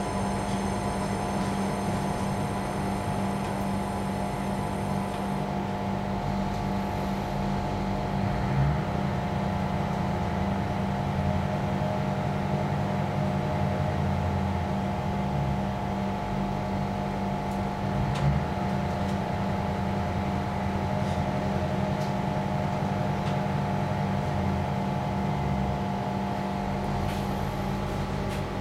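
Steady hum of a commuter train carriage's onboard equipment, heard inside the empty carriage, with a constant low tone. A thin high whine stops about five seconds in, and there are two brief knocks.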